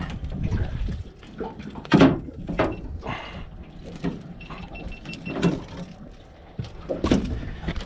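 Irregular knocks, thumps and clatter as a freshly landed mack tuna is handled in a landing net on a boat deck, the loudest thump about two seconds in. A short, thin high tone sounds briefly near the middle.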